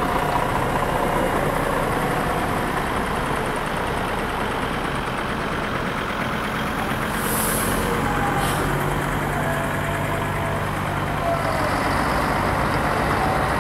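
Diesel engines of articulated city buses running as a convoy drives slowly past, a steady drone. A short high hiss of air comes about halfway through.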